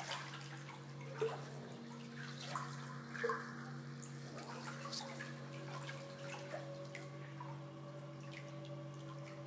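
Faint drips and small splashes of salt water moving in a flotation pod, over a steady low hum.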